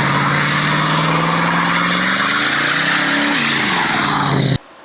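Car engine revving loud, its pitch climbing slowly and then dropping once, as at a gear change, about three and a half seconds in; the sound cuts off abruptly near the end.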